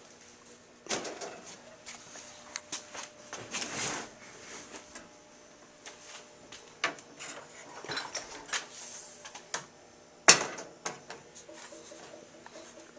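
Irregular clicks, knocks and scraping as the Wurlitzer 1400 jukebox's keyboard unit is worked loose and taken out of the cabinet, with one sharp knock about ten seconds in.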